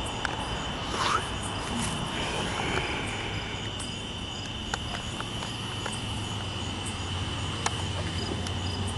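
Crickets chirping steadily over the low rumble of a slow-moving freight train's cars rolling past, with a few sharp clicks from the wheels.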